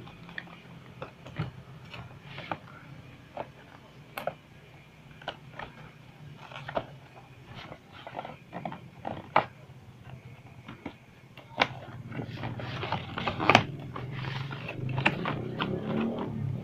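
Cardboard retail box being picked at and pried open by hand: irregular clicks and taps of fingernails on the cardboard and the box knocking on a wooden table, then denser scraping and rustling as the flaps come open in the last few seconds.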